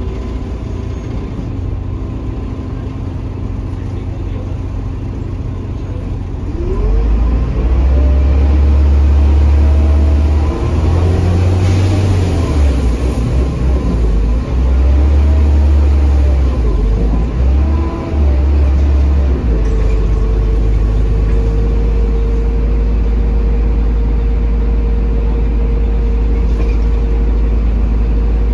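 Mercedes-Benz OM926 diesel engine of a 2008 Mercedes-Benz OH1830LE bus, heard from inside the passenger cabin. The engine runs low and steady at first; about six seconds in the bus pulls away, the engine note rising and dipping briefly at three upshifts of its automatic gearbox. From about two-thirds of the way through, it settles into a steady cruise with a constant hum.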